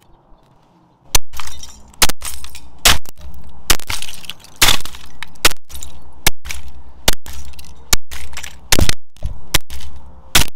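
Sledgehammer blows smashing a Nikon DSLR camera body, its plastic shell, glass and internal parts cracking and breaking apart. About a dozen strikes fall a little under a second apart, starting about a second in.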